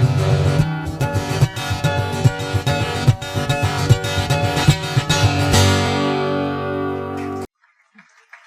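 Acoustic guitar music, strummed and picked, closing on a chord that rings for about two seconds and then cuts off abruptly, leaving it quiet for the last second.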